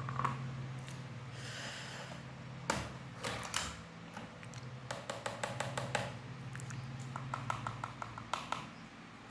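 Mechanical keyboard keys being pressed: a few single heavy clacks, then a quick flurry of keystrokes, then a run of light, evenly spaced key taps.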